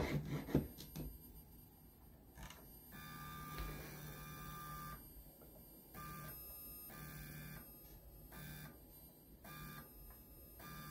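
A few handling clicks at the start, then the stepper motors of a Lowrider2 CNC machine giving a faint, steady electric hum in short runs that start and stop several times as the gantry is jogged.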